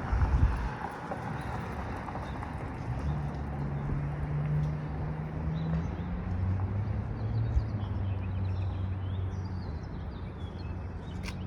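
Diesel train engine running steadily with a low hum that drops in pitch about halfway through, after a low thump at the start. Small birds chirp faintly in the background.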